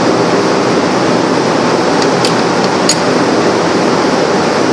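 Steady loud rushing background noise of a kitchen, with three short metallic clinks about two to three seconds in as a metal ladle turns cooked rice in a large aluminium pot.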